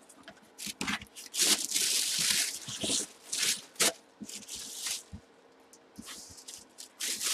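Handling noise from a cardboard box and its packaging being grabbed and moved: irregular rustling scrapes with a few sharp knocks and clicks, busiest in the first few seconds.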